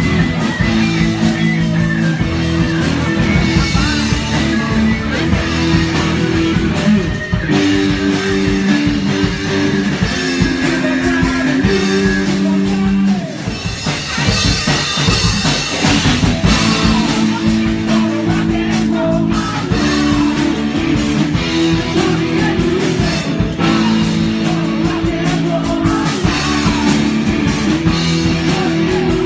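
Live rock band playing: electric guitar chords over a drum kit with cymbals, loud and steady.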